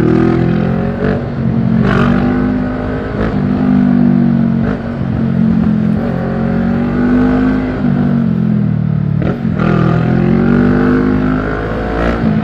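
Motorcycle engine heard from the rider's seat while under way, its pitch rising and falling several times with the throttle, over a low wind rumble on the microphone.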